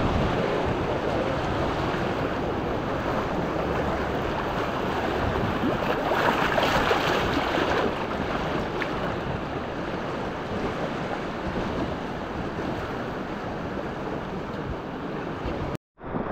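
Rushing whitewater of a mountain river around a raft, a steady roar of churning water with wind buffeting the microphone. It cuts out for a split second near the end.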